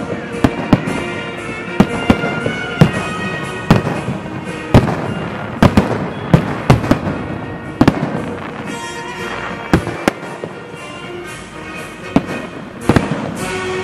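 Fireworks salute: aerial shells bursting overhead in sharp bangs at irregular intervals, several close together at times, with music playing underneath.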